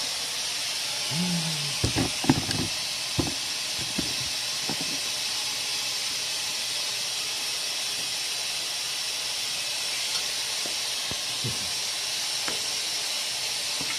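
Compressed air hissing steadily as a stretched 235/40R17 tire on a 9.5J wheel is inflated, air escaping past a bead that has not sealed. A few light knocks in the first three seconds.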